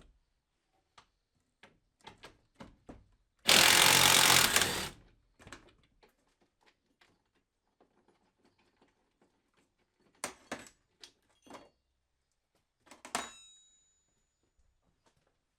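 Scattered clicks and knocks of hard objects being handled, with a loud rushing, noisy burst lasting about a second and a half a few seconds in. Near the end, a sharp metallic clink rings briefly.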